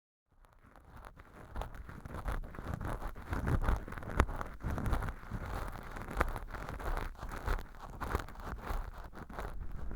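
Ear-cleaning tool scratching and rubbing dry imitation earwax inside a model ear canal lined with fluffy velcro, heard as close-up crackling and rustling made of many small irregular clicks. It fades in from silence at the start.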